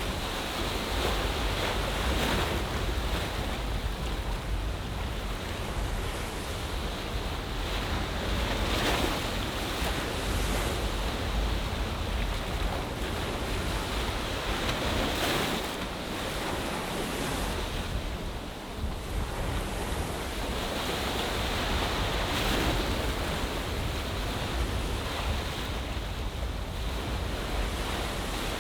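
Ocean waves washing in on a bay shore, the surf swelling every six or seven seconds over a steady wash, with wind rumbling on the microphone.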